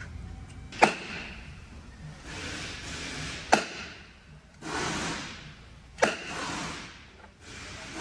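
Slide hammer threaded into a transmission's pump cover, struck three times about two and a half seconds apart, with the weight sliding along the shaft between strikes: working the pump cover loose from the 8-speed automatic transmission case.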